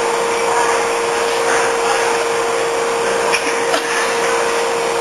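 Steady whirring noise of a running motor or blower, with a constant hum through it.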